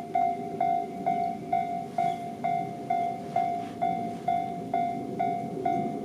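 Japanese railway level-crossing alarm ringing its repeated ding-ding warning, a little over two even strikes a second, signalling that a train is approaching.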